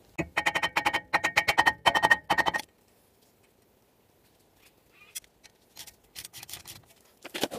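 Rapid hammer blows through a wooden block onto a rusted-on front brake disc, a quick run of strikes lasting about two and a half seconds, with the steel disc ringing under each one. The strikes are knocking the disc to loosen it from the hub where rust holds it. A few light metallic clicks follow later.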